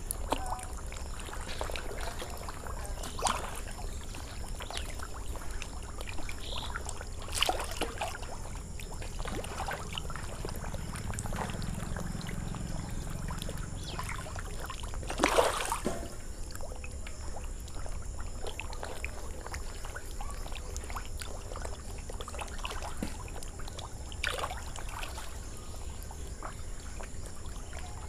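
Water splashing as pangasius catfish rise to take floating feed pellets at the surface of a cement fish tank: scattered irregular splashes, the loudest about halfway through.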